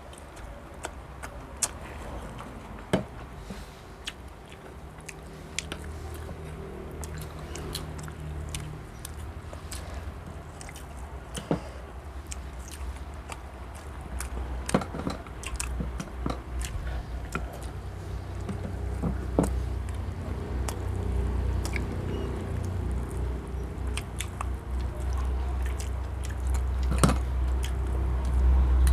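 People eating a meal: chewing with scattered sharp clicks throughout. Under it, a low rumble grows louder toward the end.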